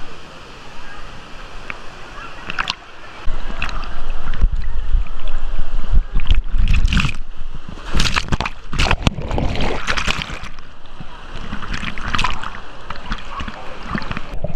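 Water rushing and splashing against a handheld camera riding down a water-park river channel. From about three seconds in it turns into a heavy, muffled rumble with sharp splashes as the camera plunges in and out of the churning water.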